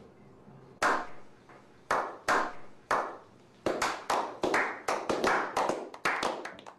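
A small group slow-clapping: single claps spaced about a second apart at first, then speeding up into quicker, overlapping clapping about halfway through.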